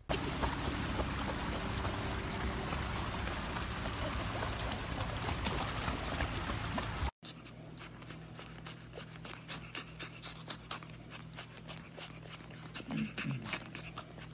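A pug panting heavily, close up, as a loud steady breathy noise for about seven seconds. It cuts off suddenly, and a pug puppy's paws scratch and dig at a fabric blanket in quick small clicks, with a short low whimper near the end.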